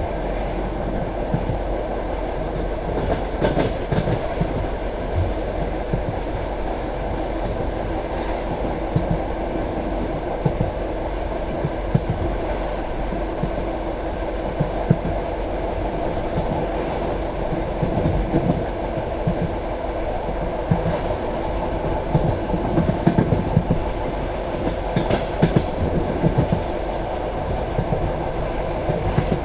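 Passenger train running at speed, heard from the carriage: a steady rumble of wheels on rail with a continual clatter of knocks and clacks as the wheels pass over joints.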